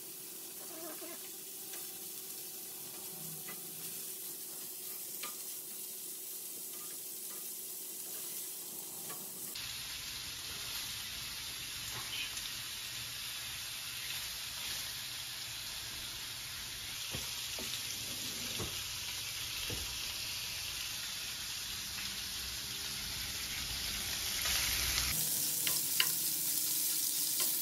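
Sliced turkey sausage sizzling in olive oil in a frying pan, a steady hiss, with a spatula clicking against the pan a few times near the end.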